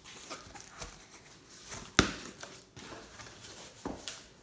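Cardboard shipping box being opened by hand: rustling and scraping of cardboard and packing material, with a sharp knock about two seconds in and a smaller one near the end.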